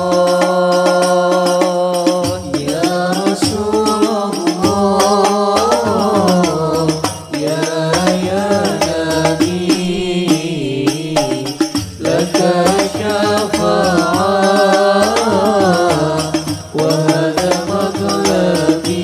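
Background music: a voice singing a melodic, chant-like song over a steady accompaniment.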